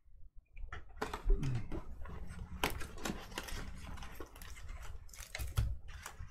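Quick run of small clicks and rustles from hands at work at a table, starting about a second in.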